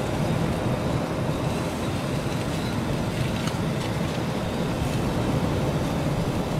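Steady rumbling outdoor noise of wind and surf on a beach, with a few faint scrapes of a knife against a frying pan as a fish fillet is turned.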